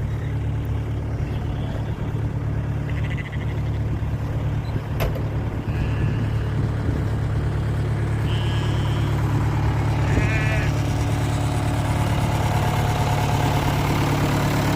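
A vehicle engine running steadily at low revs, with a few short sheep bleats over it.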